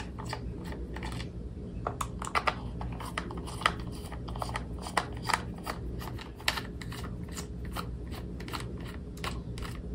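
Precision screwdriver turning small screws out of a plastic remote-control car chassis: scattered small, irregular clicks and ticks.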